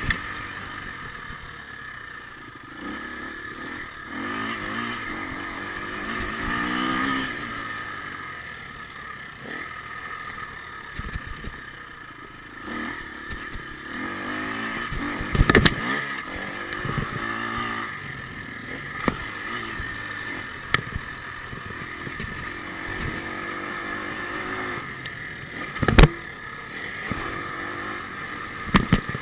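Husqvarna FE 250's single-cylinder four-stroke engine revving up and falling back again and again as the bike is ridden around a dirt track, with several sharp knocks, the loudest about halfway through and again near the end.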